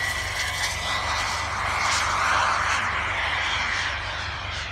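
A glider passing low overhead: a rushing whoosh of air that swells to its loudest about two seconds in, then fades as it climbs away.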